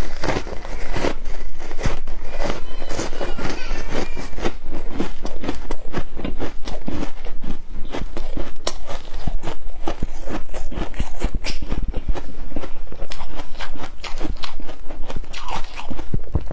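Someone chewing foam ice topped with flaked humidifier ice: rapid, irregular crunching.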